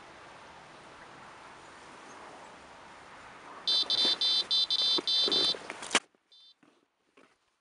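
Electronic carp bite alarm sounding a fast string of high beeps for about two seconds as the line drops back on a drop-back bite, then a sharp click and one short beep.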